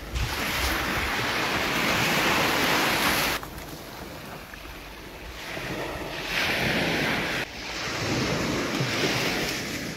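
Sea surf washing on a beach, with wind buffeting the microphone. It comes in swells of noise that drop off suddenly about a third of the way in and again about three-quarters of the way in.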